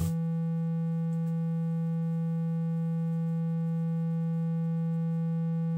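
Korg Kronos synthesizer holding one steady, low triangle-wave test note with faint overtones, panned toward the left channel.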